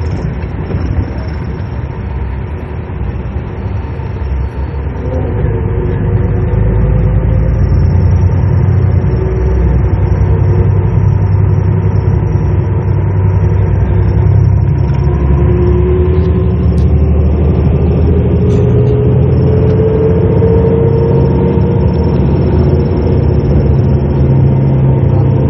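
Coach bus engine and road rumble heard from inside the passenger cabin, growing louder about five seconds in as the bus picks up speed, with a faint whine slowly rising in pitch.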